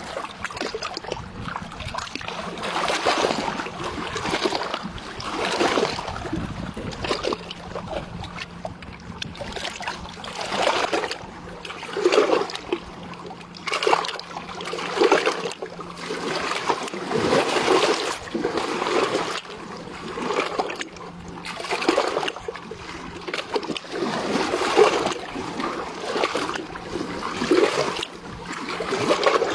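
River water splashing and lapping in irregular surges every one to two seconds, over a faint steady low hum.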